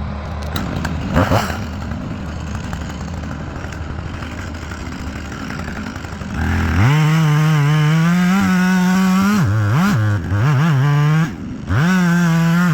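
Chainsaw running at a low idle, then revved up hard to full throttle at about six and a half seconds, held, let drop and wavering briefly, then revved up and held again near the end.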